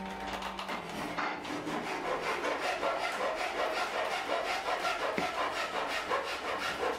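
Hand blade shaving wood clamped in a shaving horse: quick repeated scraping strokes, several a second, as the blade pares thin shavings off the piece.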